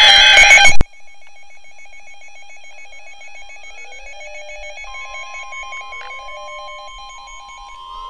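Weather alert radio sounding an alert: a very loud, harsh burst of electronic tones for under a second, then pulsing electronic alarm beeps stepping between two pitches. A steady single tone joins about five seconds in.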